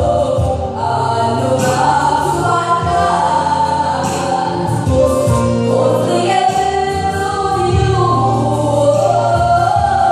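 Gospel song performed live: a woman sings lead into a microphone, with a small group of backing singers and an electronic keyboard holding sustained low notes underneath.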